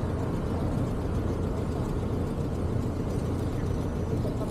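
Steady low rumble of city street traffic and vehicle noise, with no distinct events.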